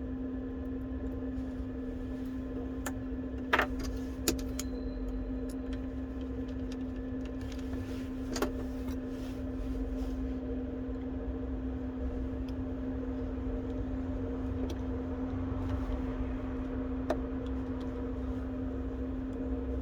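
Steady electrical hum with a few short, sharp clicks of small tools on the phone's small parts as it is reassembled.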